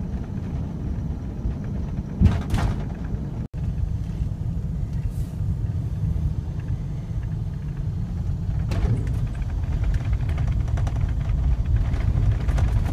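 Steady low road and engine rumble of a car being driven, heard from inside the cabin, with a sharp jolt about two seconds in.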